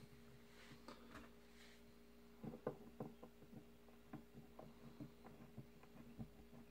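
Faint, irregular small clicks and ticks of tools and tiny parts being handled while a wire coil is fitted and screwed into a vape atomizer's build deck, starting a couple of seconds in, over a steady low hum.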